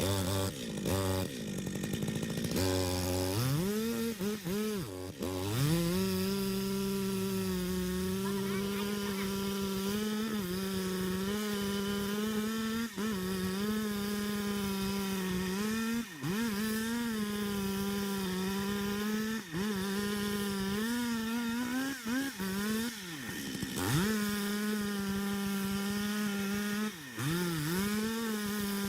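Chainsaw revving up over the first few seconds, then running at high, steady revs, its pitch sagging briefly and recovering four times.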